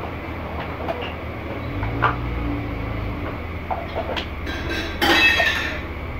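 Sliced onions frying in ghee in a large aluminium degh: a steady sizzle over a low rumble, with a few light clicks and a louder harsh burst about five seconds in.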